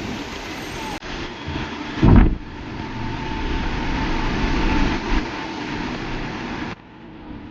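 Steady rumbling vehicle ride noise with a loud thump about two seconds in; the sound changes abruptly about a second in and again near the end.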